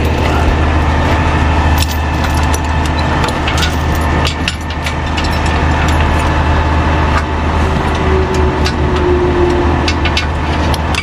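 A medium-duty wrecker's engine running steadily at idle, with scattered sharp metallic clinks and rattles over it.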